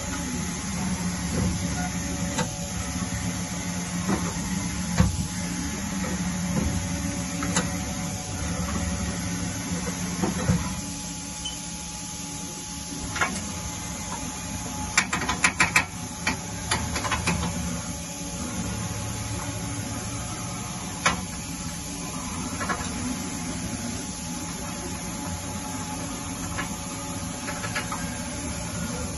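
Haas OM-2A vertical machining center powered up and running, a steady mechanical hum with scattered clicks and a quick run of clicks about halfway through.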